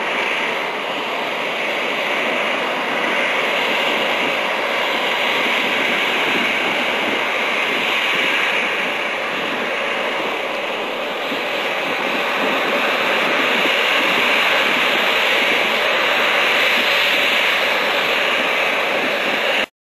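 Airbus A320-211's two CFM56-5A1 turbofan engines at takeoff thrust as the airliner rolls, lifts off and climbs away: a steady jet noise that swells a little after lift-off and cuts off suddenly near the end.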